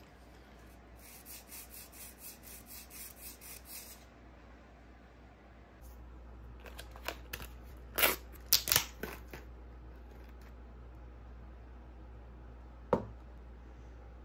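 A foil lead-test-swab pouch being torn open and crinkled in a run of sharp rustles about seven to nine seconds in. Earlier comes a quick series of about a dozen light scratching strokes, and near the end a single sharp tap.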